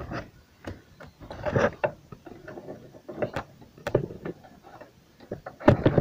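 Irregular metallic clicks, knocks and a few scrapes of a socket wrench with an extension being worked in toward a loose engine-mount bolt, with a sharper knock near the end.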